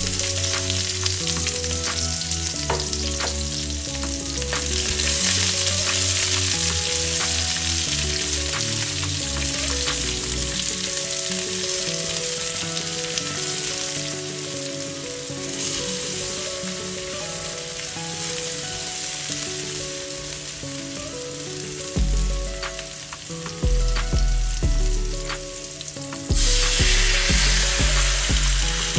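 Sliced onions and garlic frying and sizzling in oil in a stainless steel wok, stirred with a spatula. Near the end the sizzle grows louder as raw pork pieces go into the hot oil.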